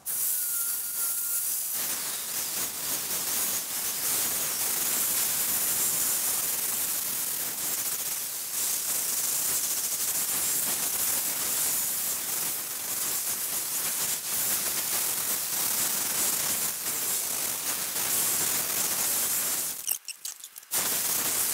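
Angle grinder with an abrasive disc grinding a metal mug handle: a steady, harsh hiss, broken briefly near the end.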